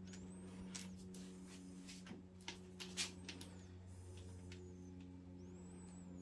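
Faint, irregular clicks and small knocks of hand tools working on engine parts, the loudest about three seconds in, over a steady low hum.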